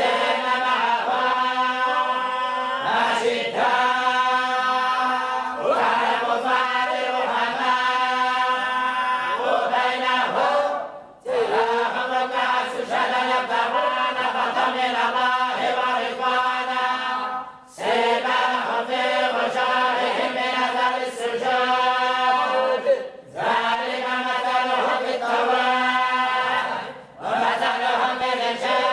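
A group reciting the Quran together in the Moroccan collective style, voices in unison held in long drawn-out notes. The recitation breaks off briefly between phrases four times.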